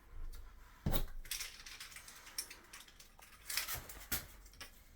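Hard clicks and knocks of ceramic wall tiles being handled and set in place: a sharp knock about a second in, then a few more near the end.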